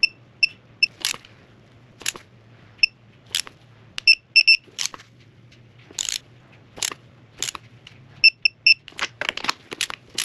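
Digital torque wrench beeping in short, high-pitched beeps, in groups of one to four, as each spark plug is tightened to its preset 22 ft-lb, with sharp ratcheting clicks from the wrench in between.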